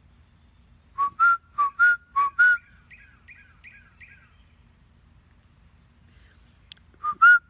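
A man whistling to a bird in a run of six short, loud whistle notes, then a bird answering with four quick, fainter two-part calls. The loud whistling starts again near the end.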